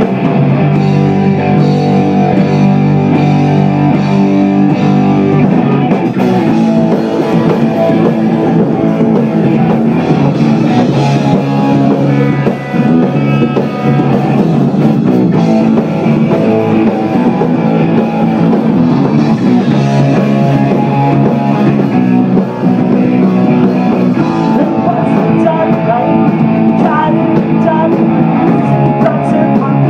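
Rock band playing live: electric guitar and drum kit, loud and continuous.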